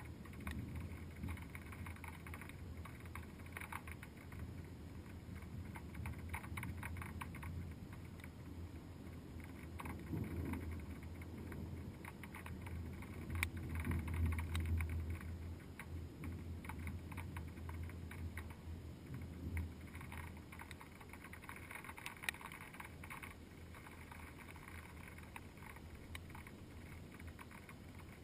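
A thunderstorm muffled through a GoPro's waterproof housing: a steady low rumble with scattered faint ticks, swelling for a couple of seconds about halfway through.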